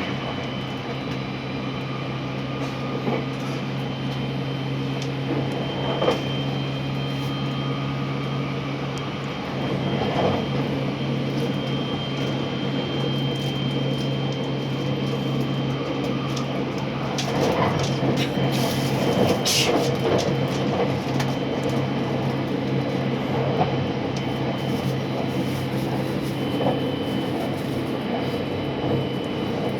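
Running noise inside a JR West 683-series limited express electric train car: a steady rumble and hum from the running gear, with a few scattered knocks and rattles.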